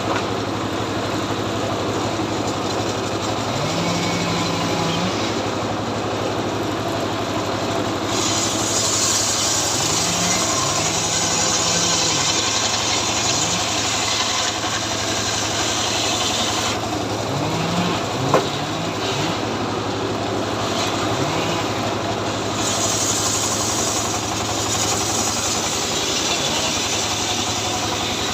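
Two-stroke chainsaw engine idling steadily, its pitch rising briefly every few seconds.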